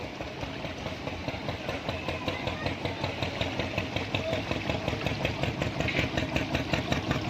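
Small fishing boat's engine running with a fast, even pulse, growing steadily louder.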